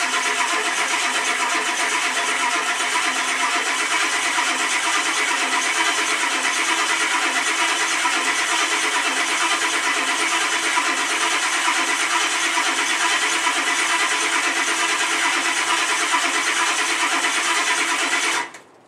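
A 1991 Ford F-250's 7.3-litre IDI diesel being cranked by its starter on a cold start after a week unused. It turns over steadily without catching, then the cranking stops suddenly near the end.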